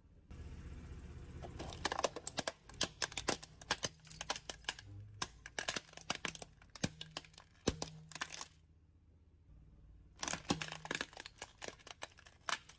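Brittle things cracking and snapping as a car's tyre crushes them, in rapid irregular crackles over a low rumble. There are two runs: one from about two seconds in until past eight seconds, and another near the end.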